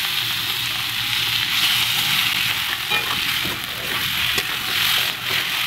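Spiced potatoes, pointed gourd and fish sizzling in a pan as a spatula stirs them, with a few scrapes of the spatula against the pan. The spice paste of the fish curry is nearly fried down.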